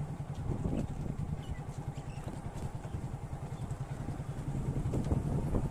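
Motorcycle engine running steadily at road speed, heard from on board, with a fast even pulsing and light road noise.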